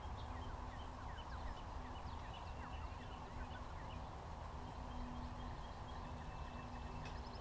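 Pigeons cooing in a low, repeated hum, with small birds chirping high above it and a steady outdoor rumble underneath.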